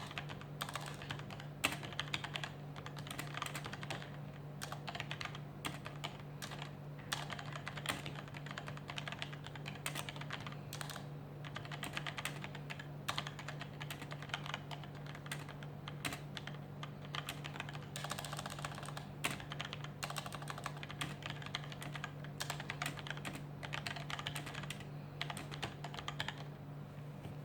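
Continuous typing on a SteelSeries Apex M800 mechanical keyboard with SteelSeries QS1 switches: quick, irregular key clicks, thinning out near the end. A steady low hum sits underneath.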